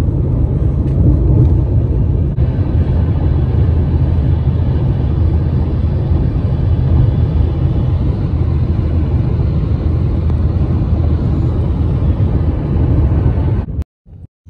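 Steady low road rumble of a car travelling at freeway speed, heard from inside the cabin with the window closed. It cuts off suddenly near the end.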